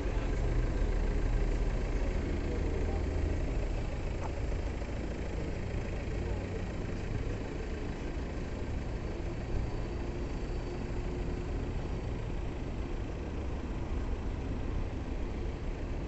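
A truck engine idling steadily, a low rumble that is a little louder for the first few seconds.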